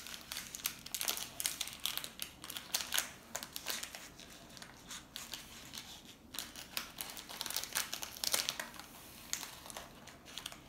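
Thin plastic bag of coloured sand crinkling with many quick, irregular crackles as it is handled and a spoon is dug in to scoop the sand out.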